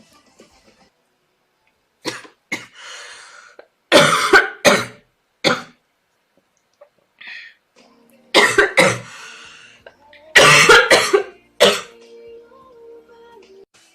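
A girl coughing in several short fits of two or three hard coughs each, with pauses between.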